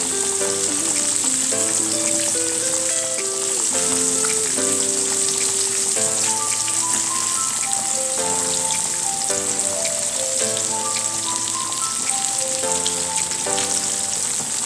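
Halloumi, onion rings and asparagus sizzling steadily in olive oil in a frying pan. Background music plays a simple melody of held notes over the frying.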